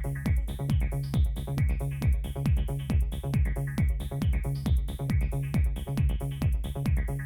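Electronic dance music from a DJ mix: a steady four-on-the-floor kick drum about twice a second, with hi-hat ticks between the kicks over a held bass.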